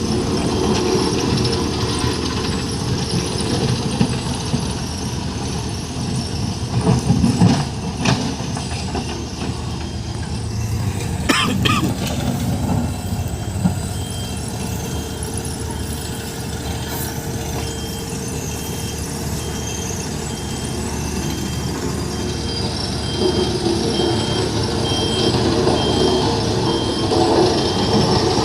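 JCB backhoe loader's diesel engine running steadily while it works gravel, with a few sharp knocks about a third of the way in. About halfway through, a reversing alarm starts beeping about once a second.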